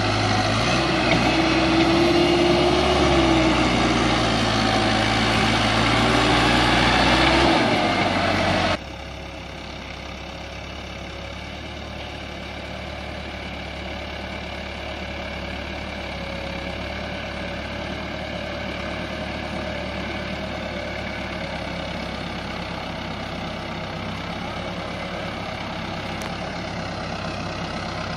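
Massey Ferguson 385 tractor's diesel engine working hard pulling a trolley. It is loud for the first eight seconds or so, then drops suddenly to a quieter, steady, more distant engine sound.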